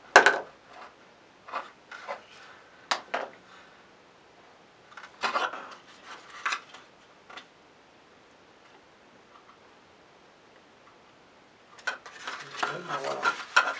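Handling noise of small paper and cardboard model-rocket parts: a sharp knock at the start, then scattered light clicks and rubs as a glued launch lug is pressed onto the body tube, with a quiet stretch before a voice starts near the end.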